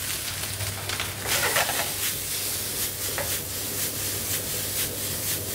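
Cooked rice frying with a sizzle in butter in a hot pan over a gas flame, tossed and stirred so that repeated swishes and rattles of the grains sound over the steady hiss. A steady low hum runs underneath.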